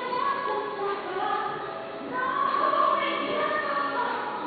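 A choir of voices singing a song in long held notes.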